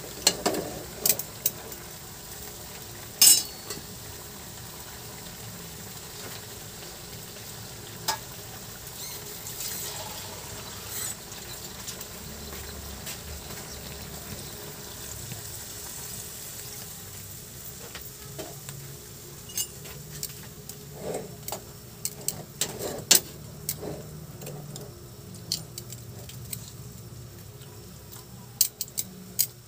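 Pork chops and potato chunks sizzling steadily in a steel wok, with metal tongs clicking and scraping against the pan now and then. The clicks come in a dense run over the last ten seconds or so.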